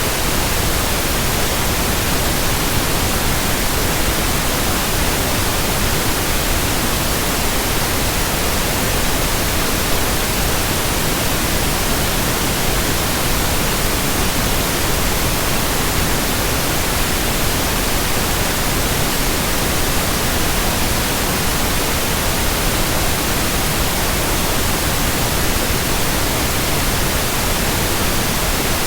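Steady white noise: an even, continuous hiss spread across all pitches, with no hum, rhythm or change.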